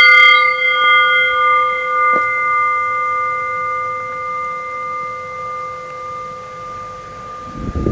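Small metal gate bell struck once, ringing on with several clear tones that fade slowly over several seconds.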